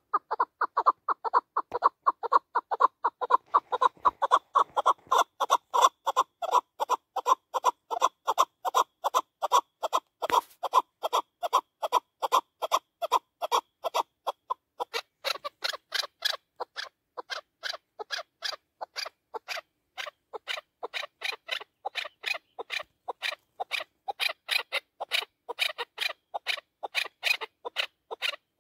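Chukar partridge calling nonstop, a fast run of short chuck notes at about three a second. About halfway through, the notes turn higher and sharper.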